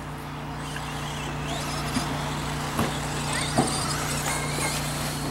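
Radio-controlled stadium trucks racing on a dirt track: thin motor whines rising and falling over a steady low hum, with three sharp knocks between about two and three and a half seconds in.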